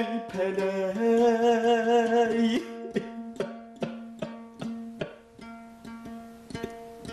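Kazakh folk singing to dombra accompaniment: the singer holds a long note with vibrato, then about two and a half seconds in the voice drops out and the dombra carries on alone, strummed in steady strokes about two to three a second.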